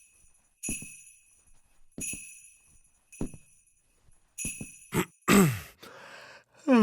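Sleigh bells shaken in short jingles about once a second, each with a soft thump as it starts. Near the end a loud, breathy call falls steeply in pitch.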